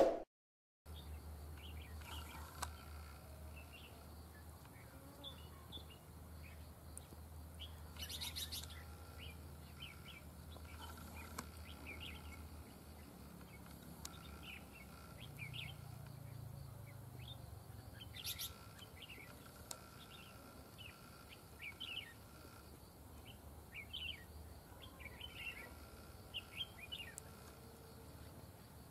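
A brief ding at the very start, then red-whiskered bulbuls calling: many short, scattered chirps and whistled notes, faint, over a low steady hum.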